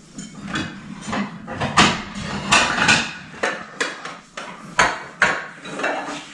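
Kitchenware clattering: a run of irregular knocks and clinks of dishes and utensils being handled, several of them loud.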